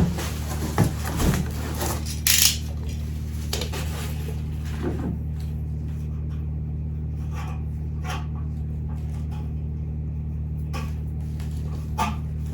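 Desk items being handled and set down: a sharp knock at the start, then scattered light clicks and taps, with a brief hiss about two seconds in, over a steady low hum.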